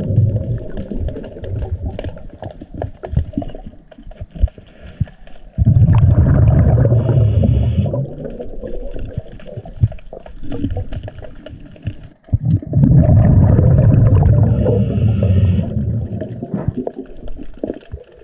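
Scuba diver breathing underwater through a regulator: two long rumbling bursts of exhaled bubbles, about 6 and 12.5 seconds in, each lasting two to three seconds with a short hiss near its end. Quieter bubbling and small clicks come between them.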